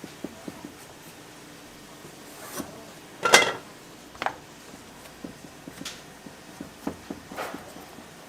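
Kitchen work: scattered light knocks and clicks of utensils and dishes, with one louder clank that rings briefly about three seconds in.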